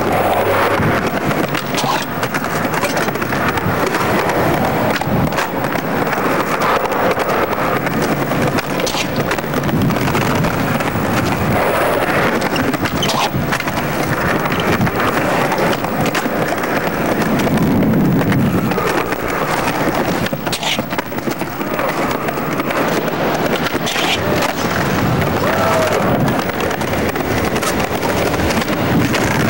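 Skateboard wheels rolling on concrete, broken now and then by sharp pops, clacks and landings as skaters do tricks on ledges and curbs.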